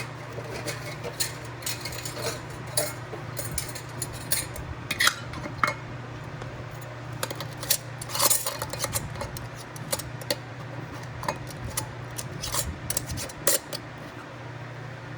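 Kitchen clatter: utensils, jars and lids clinking and tapping in irregular knocks, over a steady low hum.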